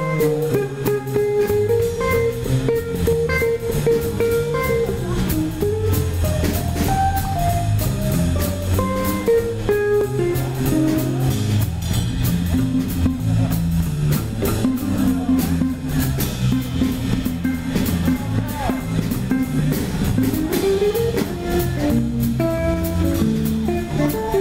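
Live jazz combo playing: an electric guitar plays a single-note melody over electric bass and a drum kit with cymbals.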